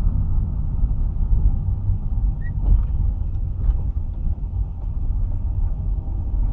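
Low, steady rumble of a 2002 Ford Fiesta 1.4 Zetec on the move, with a couple of faint knocks in the middle. The owner puts the car's trunk noise down to a failed silentblock (rubber mounting bush).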